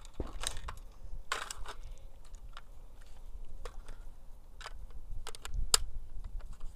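Sharp metallic clicks and rattles of an AR-15 rifle being handled to clear a round that failed to fire, with the loudest clicks near the end.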